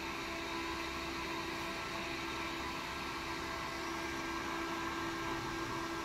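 Server cooling fan running at speed, a steady rush of air through its ducting with a constant hum.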